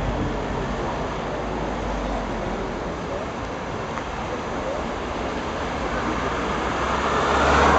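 Convoy of team support cars rolling past at low speed, steady engine and tyre noise, with one car passing close and louder near the end.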